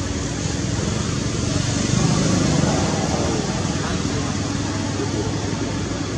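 Steady background noise: a constant hiss with a low rumble underneath, and faint, indistinct voices a couple of seconds in.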